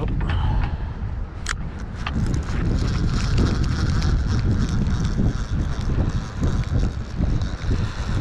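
Wind buffeting the microphone, with a Penn Squidder 140 conventional reel being wound in by hand underneath, and a few sharp clicks about one and a half seconds in.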